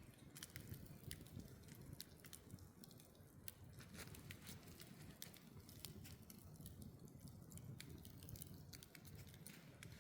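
Campfire of stacked wood crackling: faint, irregular snaps and pops from the burning logs over a low steady rumble.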